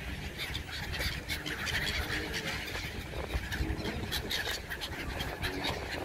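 A flock of gulls calling around a person feeding them, with many short cries overlapping, over a steady low rumble.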